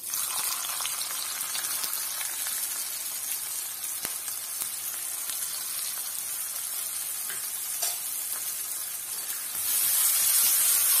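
Sliced shallots dropped into hot oil in an iron pan, sizzling steadily. The sizzle grows louder near the end as a spoon stirs them.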